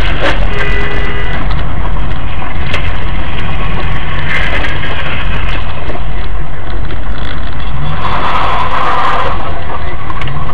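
Dashcam's in-car recording of a car driving on a wet road: loud, steady engine and road noise with a crackly, distorted edge. A sharp click comes just after the start, followed by a brief steady tone lasting about a second.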